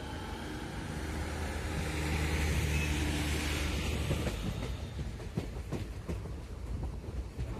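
Passenger train coach running along the track, heard from the coach window: a steady low rumble of wheels on rail with scattered sharp clicks from the rail joints, louder in the first half.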